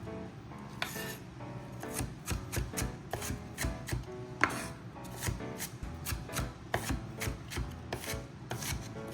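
Kitchen knife chopping on a cutting board: a quick, uneven run of sharp strokes, about two to three a second.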